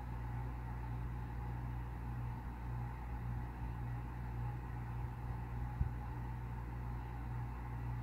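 A steady low mechanical hum, with a single short knock just before six seconds in.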